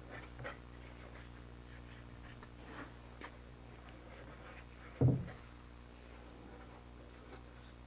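Faint rubbing and soft handling noises of a hand spreading pipe lubricant over the spigot end of a plastic manhole outlet nipple, with one dull thump about five seconds in, over a steady low hum.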